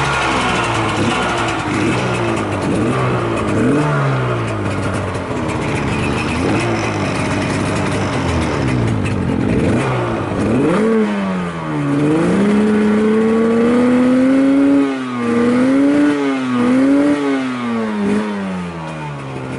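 Yamaha RZ250R two-stroke parallel-twin engine being revved with the throttle blipped over and over, the pitch rising and falling repeatedly, several quick blips in the second half. It revs up freely with no abnormal noise.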